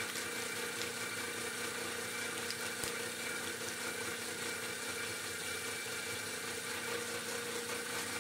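Homemade plastic shredder running: a half-horsepower electric motor turning a bike-chain reduction and worm-gear drive, with a steady hum and whine of several held tones.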